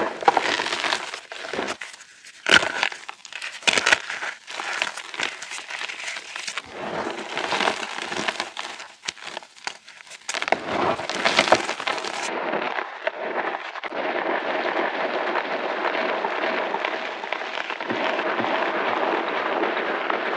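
Reformed chalk chunks crunching and snapping in quick, sharp, irregular crunches. About twelve seconds in the sound changes abruptly to a steady, dense, duller crackling that carries on.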